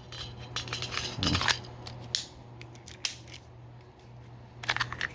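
Scattered small metal clicks and scrapes of a Ruger MAX-9 pistol's slide and frame being worked by hand, as the slide's spring tension is released during takedown. A denser run of clicks comes near the end.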